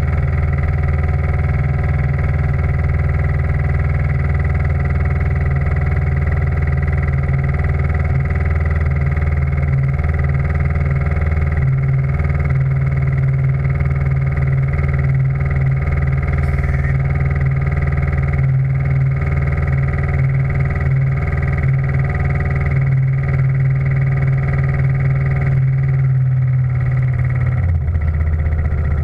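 The steam launch's engine and gas-fired boiler running steadily: a loud, continuous low hum with steady tones above it. The pitch shifts a little partway through and again near the end, as the running speed or the gas setting changes.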